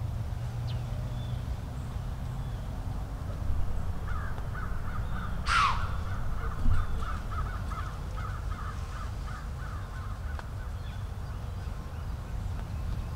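Crows cawing: a quick run of harsh caws, about two or three a second for several seconds, with one sharp falling call over them about five and a half seconds in, above a steady low rumble.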